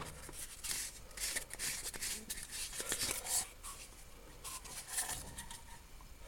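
Morse taper 3 milling collets handled, a scattered run of light metal clicks and rattles.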